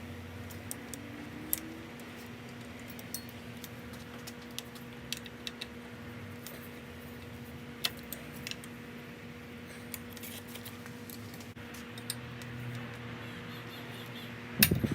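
Light metallic clinks and ticks of tools and small bicycle parts being handled, scattered irregularly over a steady hum. A louder clatter of knocks comes near the end.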